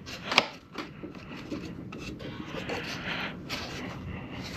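Hands working on the outboard: rubbing and scraping noises, with a sharp click about half a second in.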